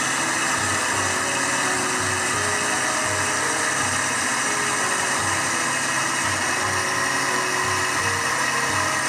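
Electric blender running steadily at high speed, grinding soaked almonds and rice with water into a milky liquid.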